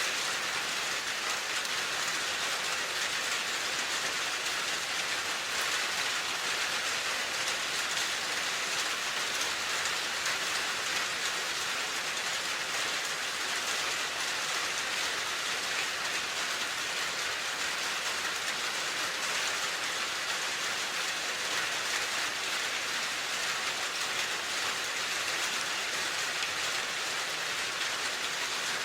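Steady rain falling, a dense, even hiss of drops with no breaks or changes.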